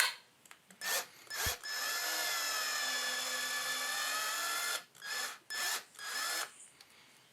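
Cordless drill driving a screw into a 2x4. A brief spin comes first, then a steady run of about three seconds, its pitch sagging slightly and picking back up as the screw bites, then three short bursts of the trigger as the screw is eased through until its point just pokes out the far side.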